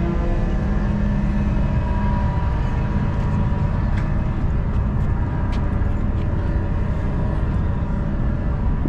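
Steady low rumble of a running vehicle engine, with a few faint clicks. The tail of a loud horn blast fades out in the first couple of seconds.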